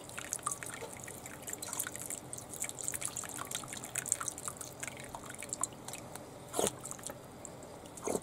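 Water trickling and dripping from a plastic bottle into flooded, soil-filled seedling pots, with many small drips throughout. Two louder short sounds come near the end.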